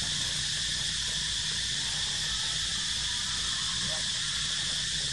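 Steady insect chorus: a continuous high-pitched drone that holds at an even level over a low background rumble, with one faint short chirp about four seconds in.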